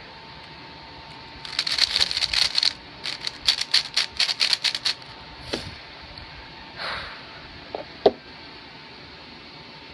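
A 3x3 speed cube being turned fast, its layers clicking in rapid rattling runs for about three and a half seconds as it is scrambled. A few separate knocks follow as it is set down, the sharpest one about eight seconds in.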